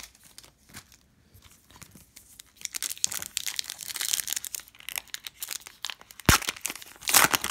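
Foil wrapper of a Donruss Optic basketball card pack being crinkled and torn open by hand. The crinkling starts about two and a half seconds in, there is a single sharp click about six seconds in, and the loudest rip comes near the end.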